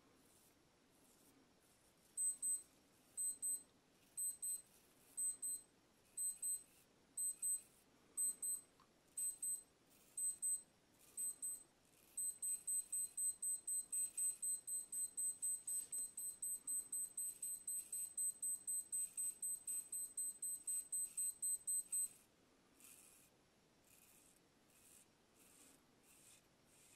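Electronic alarm beeping in high-pitched double beeps about once a second, speeding up about halfway to a rapid string of about four beeps a second, then cutting off. Under it and after it, the faint short scrapes of a straight razor across lathered stubble.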